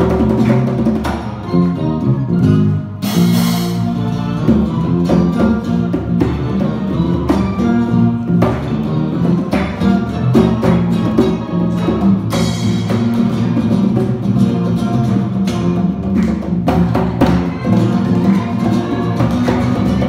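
Live instrumental band music: acoustic guitar over electric bass and hand percussion, with a cymbal crash about three seconds in and another about twelve seconds in.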